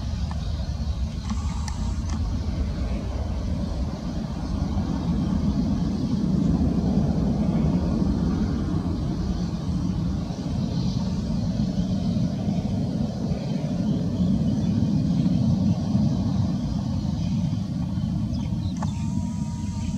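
Twin-engine jet airliner's engines at takeoff power as it climbs away after liftoff: a steady low rumble that swells and eases a little.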